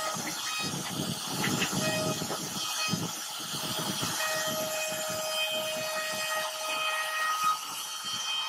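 CNC router carving a relief pattern into a wood panel: the spindle and bit cutting wood make a rough, continuous noise, with a thin whine that comes and goes.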